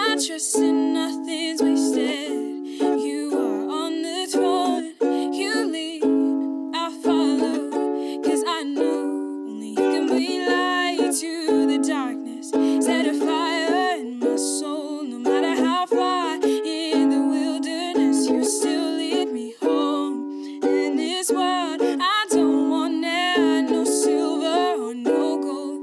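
A woman singing solo to her own strummed ukulele accompaniment.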